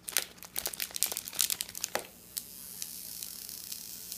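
Foil pouch of a self-inflating heart balloon crinkling as it is handled, many quick crackles over the first two seconds. From about two and a half seconds in, a steady hiss as the pouch fills with gas.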